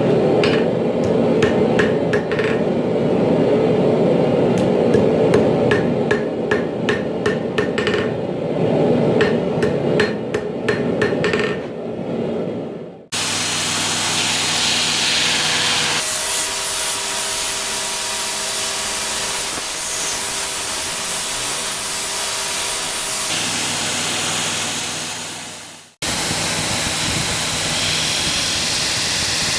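Hammer blows on steel at the anvil, struck at an irregular pace over a steady low roar. After a cut about halfway through, a steady machine hiss with a few held tones runs on, broken by another cut near the end.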